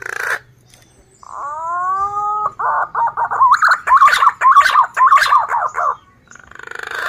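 Male punai daun green pigeon singing: one drawn-out whistle that bends in pitch, then a fast run of warbling whistled notes rising and falling for about three seconds.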